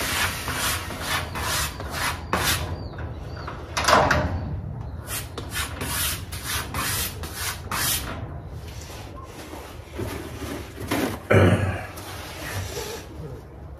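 Quick alternating strokes of a VG10 kitchen knife's blade across a board-mounted leather strop, a dry rubbing swipe about twice a second that thins out and stops around eight seconds in. Fainter handling rubs follow, with a heavier thump near the end.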